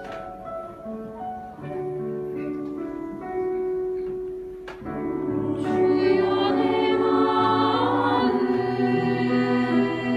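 Piano accompaniment playing the introduction, then a four-part youth choir comes in about five seconds in, singing a slow hymn in sustained harmony over it.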